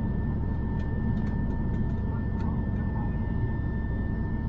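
Steady low rumble of an airliner's engines heard from inside the passenger cabin, with a faint steady whine over it and a few light clicks.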